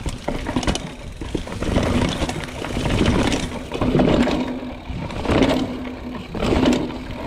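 Trek Fuel EX 5 29er mountain bike riding down stone steps and a cobbled path, its tyres and frame rattling and knocking over each step in loud, uneven surges.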